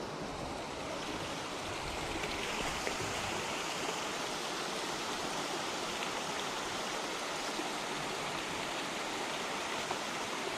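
Running water rushing steadily, a continuous even hiss.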